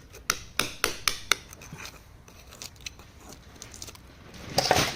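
Hammer striking a chisel into rock to work an agate loose: five quick metallic strikes in the first second and a half, then lighter taps, and a louder burst of noise near the end.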